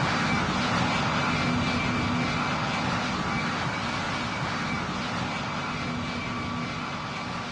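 Fixed-wing airplane's engines running steadily: a broad rush with a low hum and a high whine, slowly fading as the aircraft draws away.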